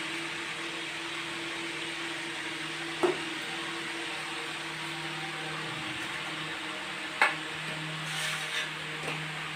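A serving spoon clinks sharply against a metal pot and stainless steel plates as rice is dished out: one clink about three seconds in, another about seven seconds in, and a light clatter near the end. A steady hiss and hum run underneath.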